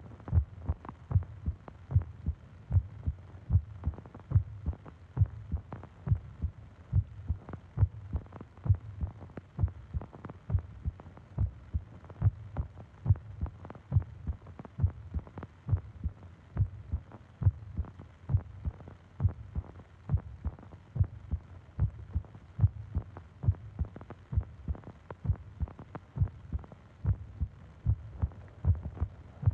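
A person's heartbeat, recorded close up: a steady, even run of low thumps.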